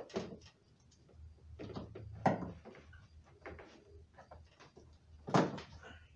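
Hood insulation pad rustling and scraping against the underside of a hood as it is pressed into place and its push-in fasteners are worked into their holes. A few sharper knocks and clicks stand out, the loudest about two seconds in and again just past five seconds.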